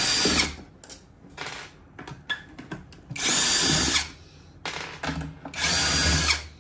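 Electric drill-driver with a T25 Torx bit running in three short bursts, backing out screws, with small clicks of handling between the bursts.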